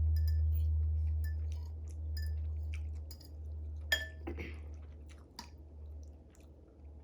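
A person eating noodles close to the microphone: chewing with wet mouth clicks, and a few clinks of a utensil against a bowl or glass, over a steady low hum.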